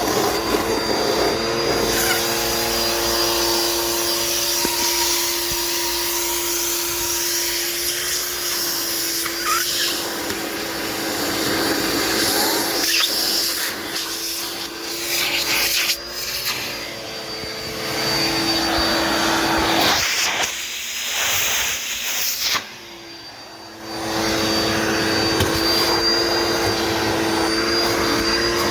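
Dirt Devil Multi Surface upright vacuum cleaner running, a steady motor hum with a thin high whine that shifts a little as it is pushed over the floor. About three-quarters of the way in, it goes markedly quieter for about a second, then comes back to full sound.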